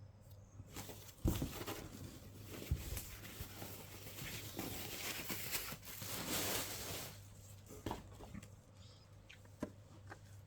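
Packaging rustling and crinkling as an item is unwrapped by hand, with a few light knocks and taps; the rustling swells in the middle and dies down near the end.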